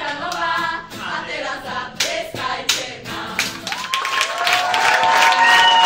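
A group of voices singing together, with a few sharp hand claps about two seconds in. From about four seconds in, several voices hold a long final chord while applause starts up beneath it.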